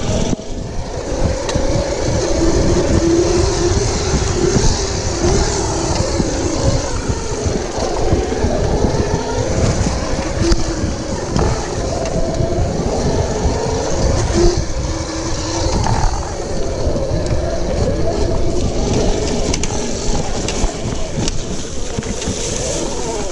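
OSET 24 electric trials bike's motor whining, its pitch rising and falling with speed, over a dense rumble of wind and trail noise on the camera's microphone.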